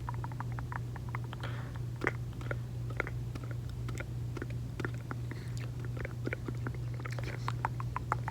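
Close-miked gum chewing and wet mouth sounds: many quick, irregular smacks and clicks. A steady low hum runs underneath.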